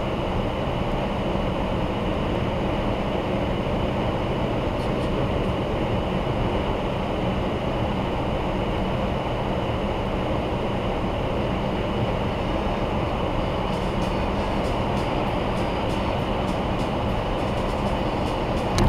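Steady tyre, road and wind noise heard from inside a car cruising on a motorway at about 105 km/h.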